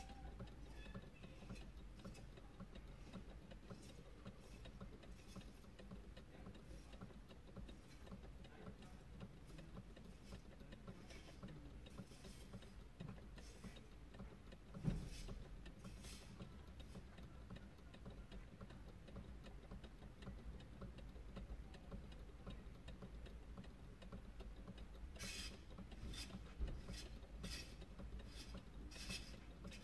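Near silence inside a parked car: faint scattered clicks, one low thump about halfway, and a quicker run of clicks near the end.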